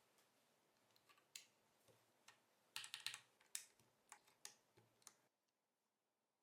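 Typing on a mechanical keyboard with Kailh MX BCP switches in a Cycle7 board without foam: irregular keystroke clacks, busiest about three seconds in, cutting off abruptly a little after five seconds.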